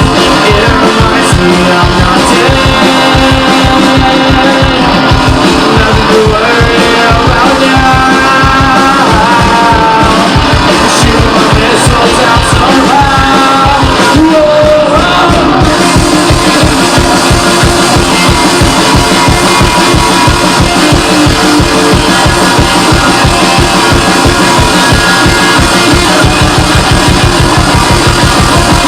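Rock band playing live, loud, over a steady driving beat. Through the middle, a melodic line slides up and down over the band.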